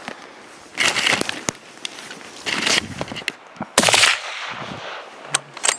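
A hunting rifle fires a single follow-up shot about four seconds in, the loudest sound here, with a short ringing decay after it. Two shorter bursts of noise come before it.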